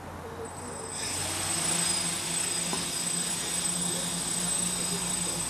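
Small quadcopter's electric motors and propellers spinning up about a second in, then running steadily as it lifts off and hovers. The sound is a steady rushing hiss with a high whine.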